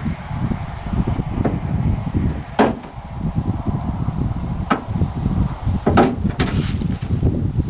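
Wind buffeting the microphone with a steady low rumble, broken by a handful of sharp knocks and clicks from work on a pickup truck's door and window parts.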